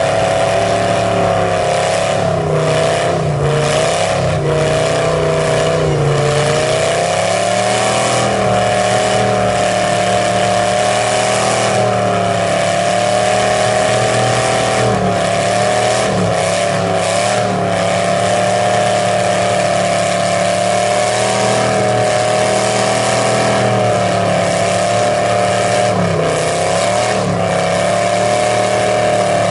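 Lifted pickup mud truck's engine held at high revs, its pitch wavering up and down as the big mud tyres spin in deep mud without moving the truck: the truck is stuck.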